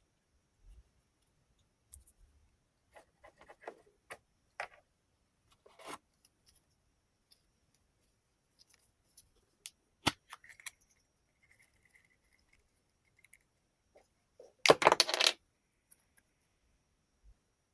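Small metal rotary tool accessories clinking and ticking as they are handled, with a sharp click about ten seconds in and a brief, louder rattle of many pieces about fifteen seconds in.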